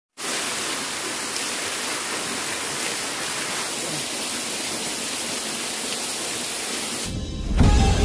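Small waterfall pouring down a rock face onto rocks and a bather beneath it: a steady rush of falling water. It cuts off about seven seconds in, and background music starts just before the end.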